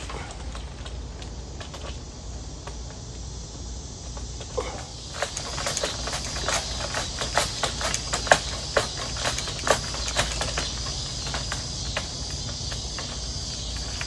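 Pruning saw on an extendable pole rasping through a tree branch overhead in short, irregular strokes. From about five seconds in, a steady high insect trill runs underneath.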